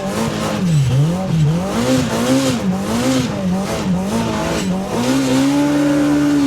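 Turbocharged Polaris RZR Pro R side-by-side engine revved up and down over and over, about twice a second, as it is gunned through deep snow with the tires spinning. Near the end it is held at high revs for about a second and a half, then falls away.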